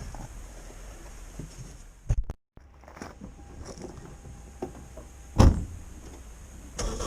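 Faint clunks and knocks from handling work around a car, with one loud thump about five and a half seconds in and a brief total dropout just after two seconds.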